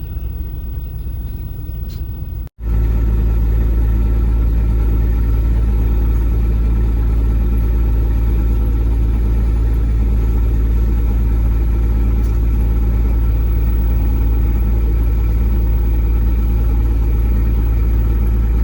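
Fishing boat's engine running steadily, a loud low drone. It breaks off for an instant about two and a half seconds in and comes back louder.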